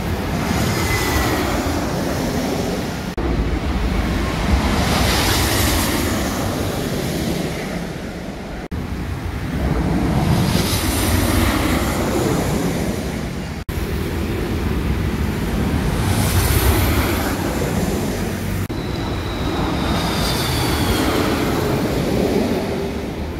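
Busy road traffic: cars, vans and motorbikes passing one after another in a steady, loud rumble that swells as each passes. The sound breaks off abruptly and resumes several times at edits.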